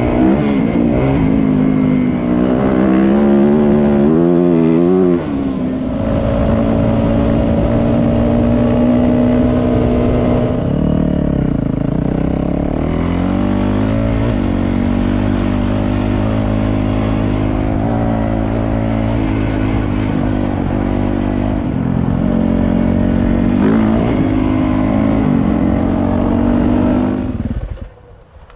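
Yamaha YZ450F dirt bike's single-cylinder four-stroke engine running while ridden on a dirt track, its revs rising and falling and then holding steady. The sound drops away near the end as the bike comes to a stop.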